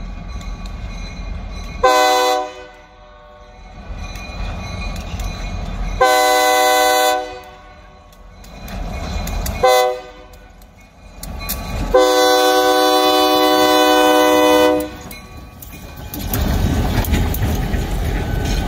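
Air horn of the lead locomotive, an EMD SD40 diesel, blowing the grade-crossing signal as the train approaches: two blasts, a brief one, then a long one of about three seconds. Near the end the locomotive's engine and wheels rumble past close by.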